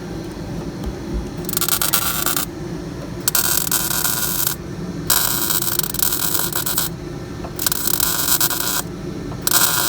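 A MIG welder laying short plug welds that fuse the floor pan to the frame rail: about five bursts of harsh crackling, each around a second long, with short pauses between them.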